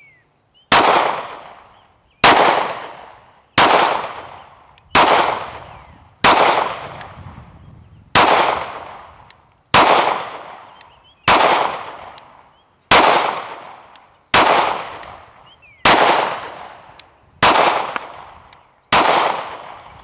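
Smith & Wesson Equalizer 9mm pistol fired in slow aimed fire: thirteen shots, about one every one and a half seconds. Each report trails off over about a second.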